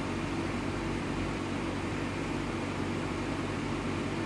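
Steady low hum of a running machine, with a faint hiss over it and no separate events.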